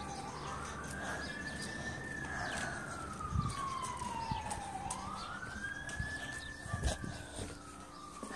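A siren wailing: its pitch climbs quickly near the start, falls slowly until about five seconds in, then climbs again and starts falling once more. A few soft knocks can be heard over it.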